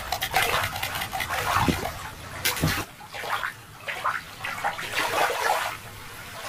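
Shallow water sloshing and splashing irregularly.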